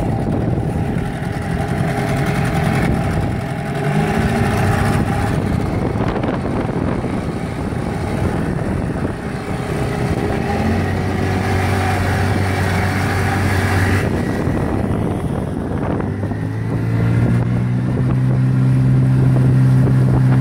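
Golfstream (Parsun) T8 8 hp two-stroke outboard motor running under way. Near the end the engine note rises in pitch and gets louder.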